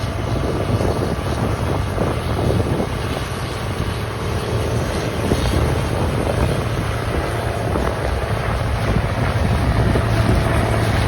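Harvest machinery engine running steadily with a constant low hum, under wind noise on the microphone.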